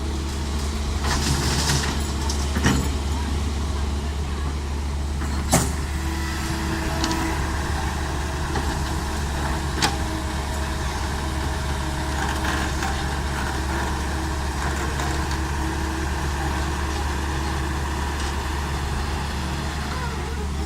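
Diesel engine of a Caterpillar E120 hydraulic excavator running steadily at work, with three sharp knocks spread through the first half.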